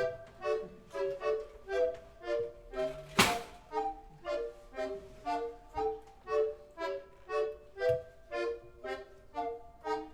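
Instrumental music: a steady run of short pitched notes, about three a second, each struck sharply and quickly dying away, with one sharp knock about three seconds in.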